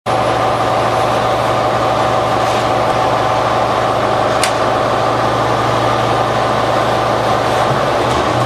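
Diesel engine of a 2011 New Flyer Xcelsior XD40 transit bus, a Cummins ISL9, idling steadily with a low hum and a steady whine above it. A single sharp click comes about halfway through.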